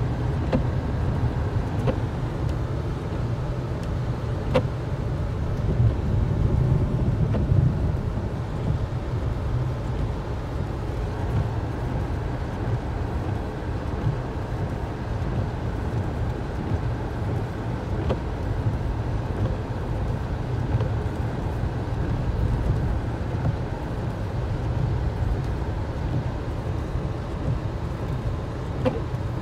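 Steady low rumble of a car's engine and tyres on a snowy road, heard from inside the cabin, with a few faint ticks.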